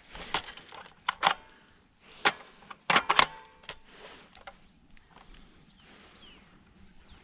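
Airsoft gun firing single shots: about eight sharp cracks over the first four seconds, some in quick pairs, then only faint outdoor background.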